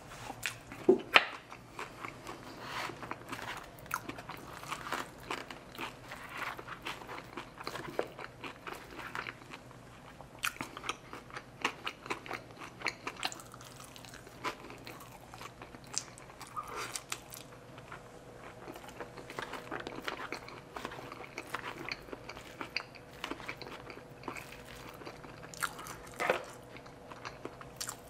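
Close-miked chewing and biting of loaded carne asada fries, with crunching and a steady run of small mouth clicks. It is louder for a moment about a second in, and again a little before the end.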